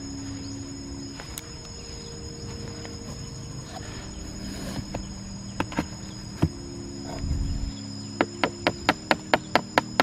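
Steady high-pitched insect chirring, with a few scattered knocks. About two seconds before the end a fast, even run of sharp clicks begins, about five a second, and becomes the loudest sound.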